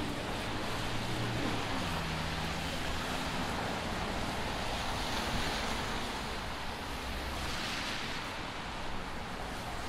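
City traffic on snow-wet streets: a steady hiss of tyres on wet pavement that swells twice as vehicles pass, over a low engine hum in the first two seconds.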